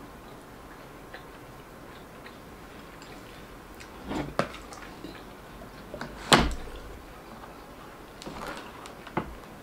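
A metal spoon knocking and scraping against a plastic container while scooping a soft dessert: a few sharp clicks, the loudest a little past the middle, with softer scraping between.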